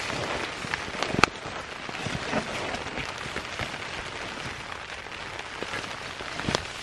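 A steady patter of small taps and crackles, with one sharp, louder tap a little over a second in.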